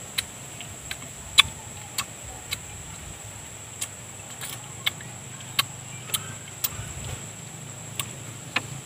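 Wet mouth sounds of a person eating ripe mango close to the microphone: sharp lip smacks and mouth clicks at irregular intervals, about one or two a second, over a steady faint high tone.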